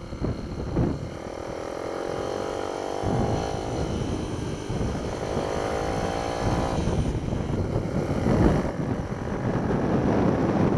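Minibike engine heard from on board, its pitch climbing steadily for about six seconds as it revs up, then dropping away suddenly as the throttle comes off, with wind buffeting the microphone throughout.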